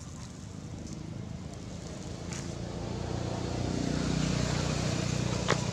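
A motor engine running with a low, steady hum that grows louder through the second half, with one sharp click near the end.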